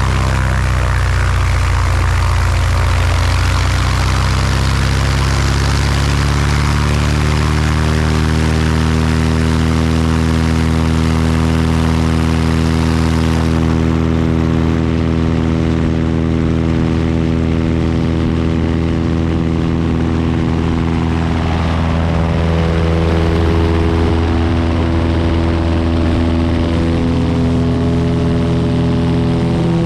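Single-engine Cessna's piston engine and propeller running at takeoff power, the note climbing over the first several seconds and then holding steady. A rushing hiss under it from the roll over the grass strip drops away about halfway through.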